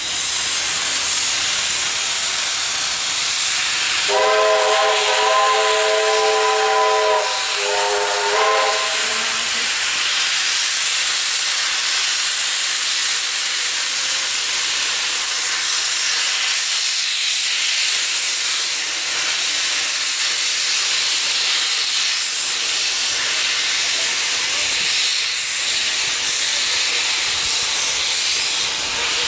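Steam hissing steadily from the open cylinder drain cocks of AD60-class Beyer-Garratt steam locomotive 6029 as it moves slowly off. Its steam whistle sounds once for about three seconds, then gives a second short blast.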